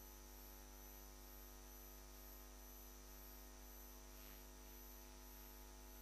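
Near silence: a faint, steady electrical hum.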